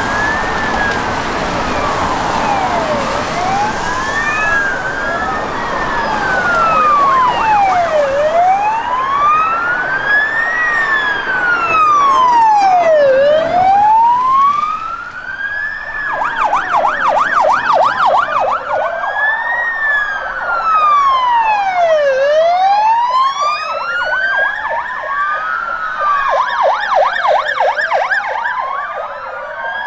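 Electronic sirens of several police cars in a convoy: a slow rising and falling wail, with more than one siren overlapping out of step, and stretches of a fast yelp about halfway through and again near the end.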